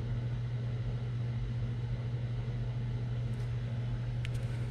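Steady low hum of room background noise, with a few faint light clicks near the end.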